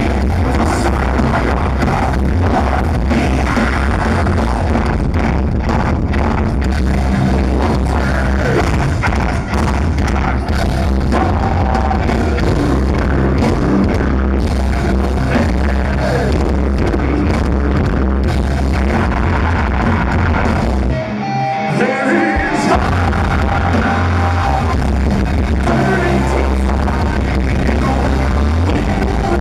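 A live metal band playing loud, with a singer over the heavy band sound. About two-thirds of the way through, the low end drops out for a second or so before the full band crashes back in.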